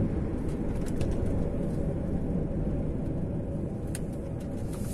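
Steady engine and road rumble inside a moving lorry's cab, with a couple of faint clicks.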